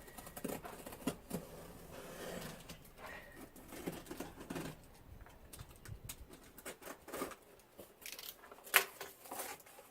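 Cardboard box and its packaging being opened and handled by hand: irregular rustling, scraping and crinkling, with scattered knocks and a sharp click a little before the end.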